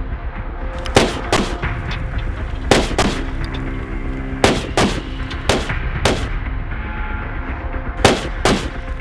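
Gunshots against an armored SUV's bulletproof windshield: about a dozen sharp shots, mostly in quick pairs, over a steady music bed.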